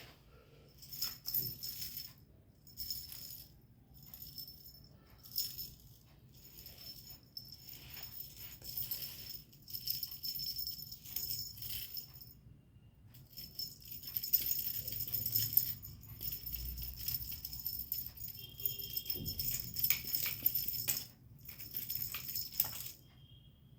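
A small bell jingling and rattling in irregular bursts of a second or two, with short pauses between them.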